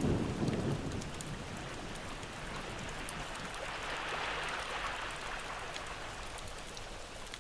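Wood campfire crackling: a steady hiss with scattered sharp pops, with a low rumble in the first second.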